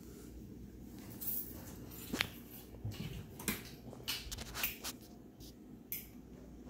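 Light footsteps and small handling clicks, scattered and irregular, over a low steady hum in a quiet room.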